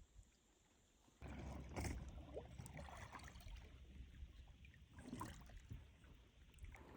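Faint water lapping and splashing, with small irregular splashes over a low steady rumble, starting abruptly about a second in after near silence.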